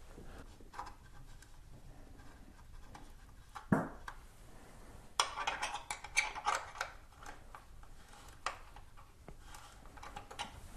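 Hands adjusting a motorcycle's rear-axle chain adjuster: scattered light clicks and scrapes of metal parts being handled, with a knock about four seconds in and a busier run of clicks a second or so later.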